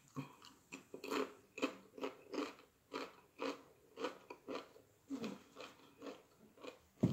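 Close-miked chewing of crunchy Doritos Flaming Hot Nacho tortilla chips, with crisp crunches coming about two to three times a second. A sharper, deeper knock comes near the end.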